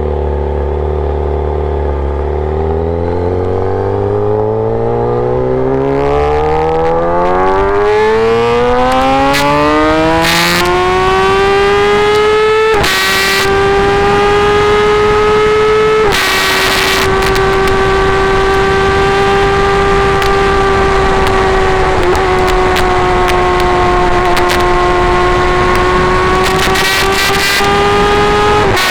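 Kawasaki ZX10R inline-four with an SC Project full-system exhaust, its revs climbing smoothly and steadily for about twelve seconds, then held high with a few brief dips.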